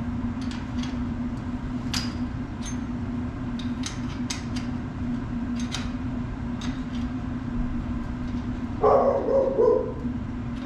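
A dog barks in a short run near the end, the loudest sound. Under it are scattered light clicks of tools and metal on the kennel latch hardware, over a steady low hum.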